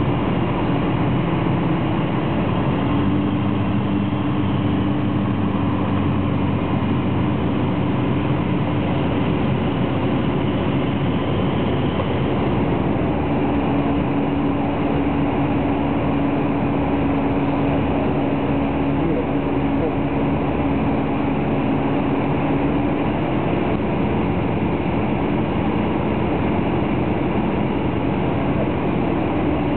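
An EV-97 Eurostar microlight's engine and propeller droning steadily, heard inside the cockpit on the approach. Its pitch shifts slightly a few seconds in and again about halfway through.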